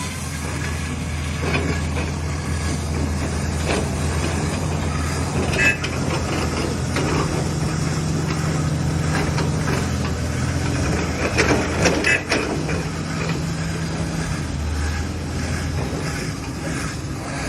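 Diamond wire stone-cutting saw running under power with a steady low hum, with scattered knocks and clatter about six seconds in and again around eleven to twelve seconds.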